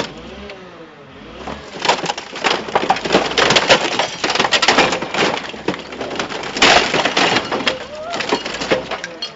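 A scrap car's engine being ripped out by SAS Scorpion engine puller forks: a loud, dense run of cracking, snapping and crunching as metal, mounts and parts break away, starting about a second and a half in and heaviest in the middle and again near the end.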